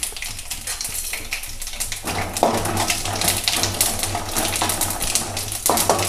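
Mustard seeds, cumin, urad dal and black peppercorns crackling and popping in hot ghee in a metal kadai during the tempering: rapid sharp pops. From about two seconds in, a ladle stirs and scrapes the spices and cashews around the pan.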